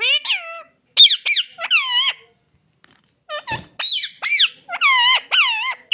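Pet parrot making a string of short, high, squeaky calls, each note arching up and down in pitch. There is a pause about two seconds in, then a quicker run of calls, with a brief low bump about three and a half seconds in.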